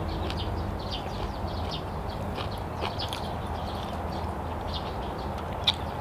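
A person chewing a mouthful of food with the microphone close, giving a steady run of small wet mouth clicks and smacks, and one sharper smack near the end.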